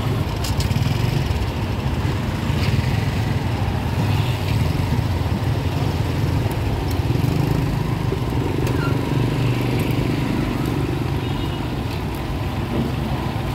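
A steady low rumble, with a few faint light clicks and clinks scattered through it.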